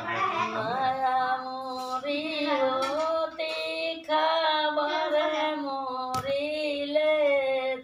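An elderly woman singing without accompaniment, holding long drawn-out notes, with a short break in the middle.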